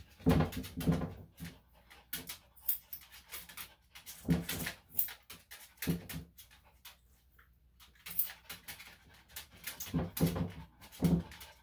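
Small Maltese/Shih-Tzu dog vocalizing in four short bursts as he resists being handled for grooming. Sharp little clicks come in between.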